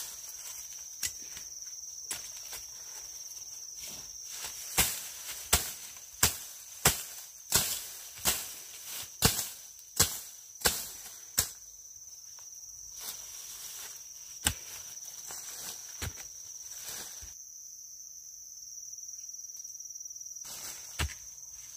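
About a dozen sharp knocks in quick succession, roughly one and a half a second, like chopping or striking wood, with a few scattered knocks before and after. A steady high-pitched insect drone runs underneath.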